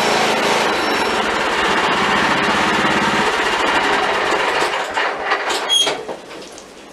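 Riding lawn mower's small engine running steadily, then cutting off near the end with a couple of sharp clacks just before it goes quiet.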